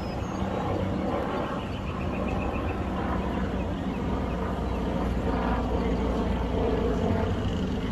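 Steady low rumble, like a running vehicle or wind on an outdoor recording, with a faint run of quick chirps about two seconds in.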